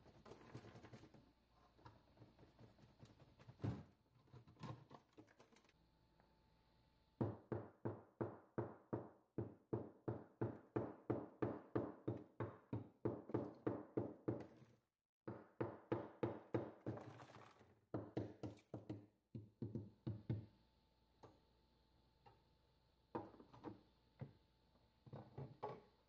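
Ice built up in a Samsung RF217 refrigerator compartment being knocked and chipped loose with a metal hand tool. A few scattered knocks come first, then a fast run of strikes about three a second for several seconds. After a short break there are more strikes, thinning out to a few knocks near the end.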